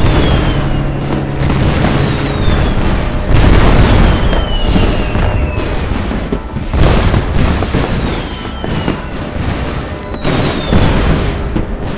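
Fireworks going off: repeated bangs about every three seconds and several short whistles that fall in pitch, with music underneath.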